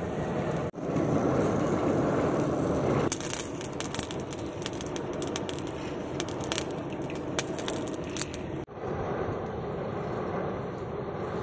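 Charcoal fire being blown by a hand-cranked blower, a steady rushing of air and flame. From about three seconds in, the burning coals crackle and pop for some five seconds, then the steady rushing returns.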